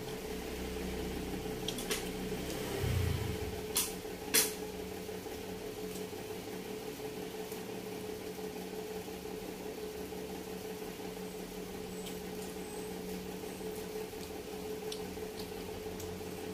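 Hand-eating sounds over a steady low machine hum: a few sharp clicks in the first five seconds, the loudest about four seconds in, as fingers pick food from a plate, with soft chewing.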